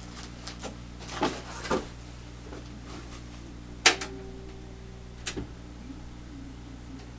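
Scattered light clicks and knocks of hands handling tools and wire, with one sharper click about four seconds in, over a steady low hum.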